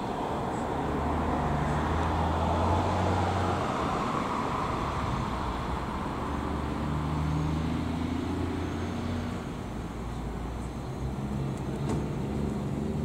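Road traffic: a vehicle goes by in the first few seconds, swelling and fading, over a steady low engine hum.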